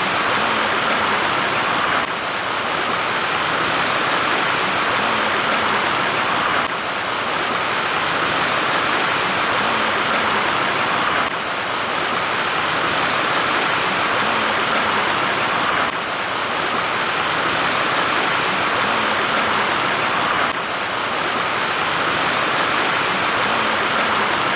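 Steady rush of a mountain waterfall, water pouring down a rock face, with a slight break in the sound every four or five seconds.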